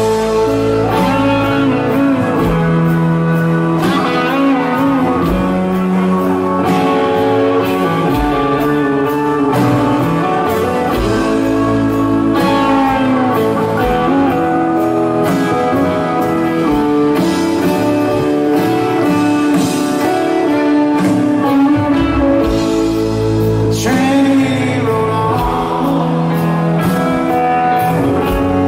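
Background music: a song with a male or female singing voice over guitar and a steady beat.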